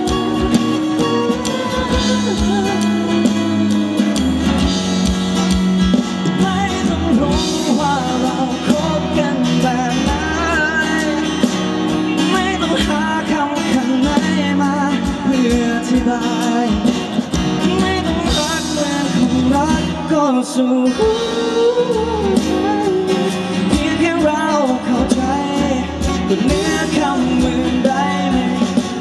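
Male singer singing a Thai pop song live into a microphone over instrumental accompaniment.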